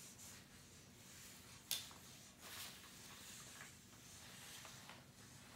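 Faint scratching of felt-tip markers drawing on paper, with one sharp click a little under two seconds in.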